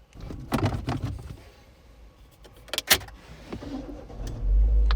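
Clicks and knocks of things being handled inside a car, with a sharp click about three seconds in, then a low steady rumble starting near the end.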